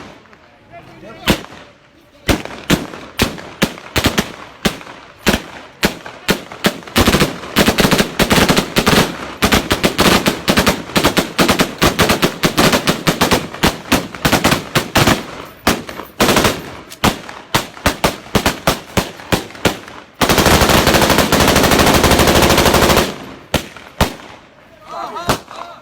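Celebratory gunfire: many sharp single and rapid shots fired in quick succession, growing denser, then about three seconds of unbroken automatic fire a little after the middle.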